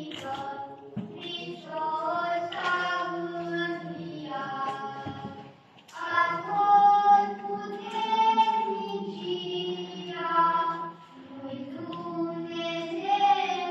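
Several voices singing Orthodox Easter chant together in long held phrases. It breaks off briefly about five seconds in and then picks up again louder.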